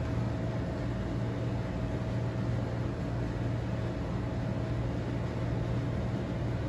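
Steady low hum with a faint, higher steady tone above it and a background hiss, unchanging throughout.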